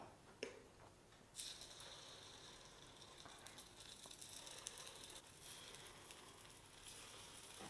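Very faint sizzling as spoonfuls of idli batter go into the hot oiled moulds of an appam pan, with a light spoon tap about half a second in. The sizzle starts about a second and a half in.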